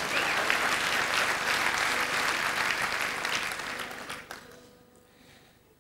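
Theatre audience applauding, dying away about four seconds in.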